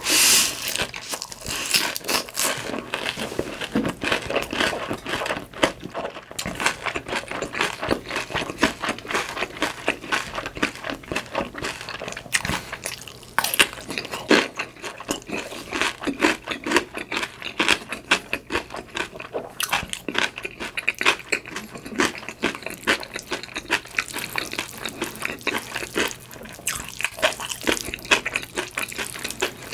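Close-miked eating sounds: wet chewing, smacking and crunching of cheesy mi goreng noodles eaten on a hash brown, in quick, irregular bites, with a loud bite right at the start.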